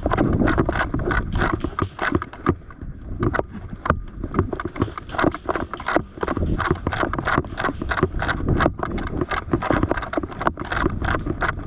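Rapid, irregular knocks and rustling over a low rumble of wind buffeting the microphone: footsteps and gear rattling as an airsoft player moves on foot.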